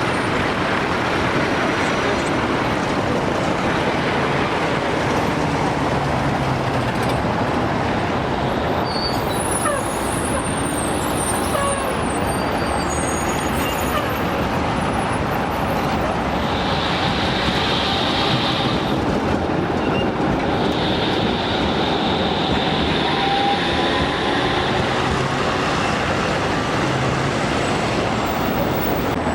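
Steady street traffic noise from passing vehicles, with two high, drawn-out squeals about halfway through.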